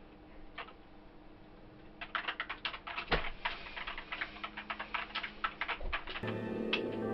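Fast typing on a computer keyboard, the keys clicking in quick runs from about two seconds in. Music comes in near the end.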